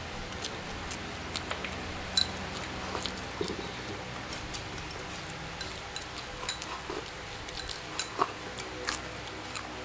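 Scattered light clicks and taps of eating utensils against bowls during a meal, irregular and a few each second.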